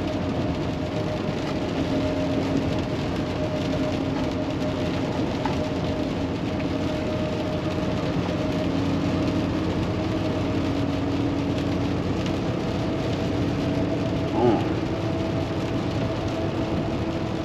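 Cab noise of a Kenworth T680 semi truck with a PACCAR MX13 diesel cruising at highway speed on a wet road: steady engine and road noise with a constant drone.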